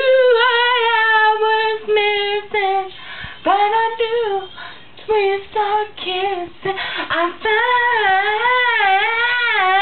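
A woman singing solo without accompaniment: wordless runs and held notes on a vowel. About three quarters of the way through she moves into a long sustained 'I' that wavers with vibrato.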